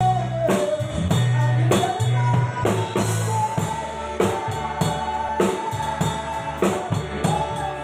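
Live band playing, with a drum kit keeping a steady beat over a bass line and a long held note in the middle.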